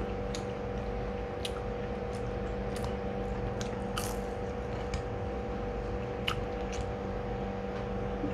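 A person biting into and chewing a fried anchovy omelette (tortang dilis), with scattered small wet mouth clicks. A steady electrical hum runs underneath throughout.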